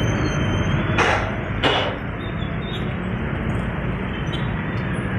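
Steady road traffic noise from a busy highway, a low engine rumble, with two short rushes of noise about a second and a second and a half in.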